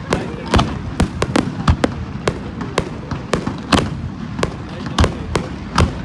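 Fireworks display: shells bursting in sharp bangs, about two a second, over a continuous low rumble and crackle.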